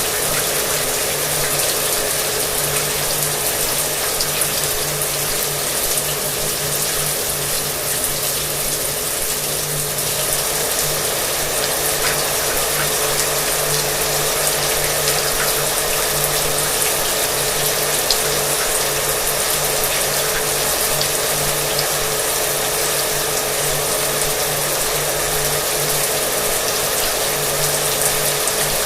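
Shower water running steadily with a hair dryer running underneath: an even hiss of spray over a steady motor hum.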